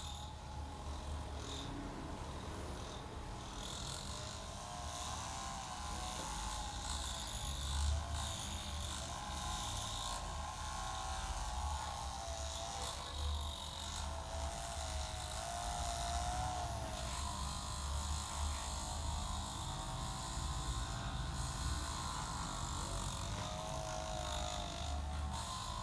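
Hands rubbing and kneading hair and skin during a head and shoulder massage, with soft scratchy rustling and light ticks, over a steady low electrical hum. A faint wavering whine comes and goes in the background.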